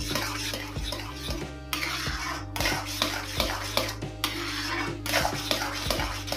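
A spoon scraping and knocking against a kadhai as thick semolina halwa is stirred, in quick repeated strokes several times a second.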